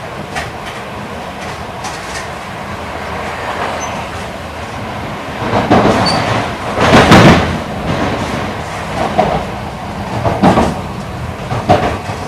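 Running noise of an E8 series Shinkansen heard from inside the passenger car at speed. A loud rushing swell comes about halfway through, and sharp wheel clacks on the track follow a few times near the end.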